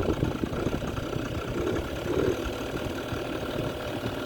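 Kymco Super Fever ZX 50cc two-stroke scooter engine idling roughly and unevenly. It is not getting enough fuel, which the owner blames on a poor carburettor.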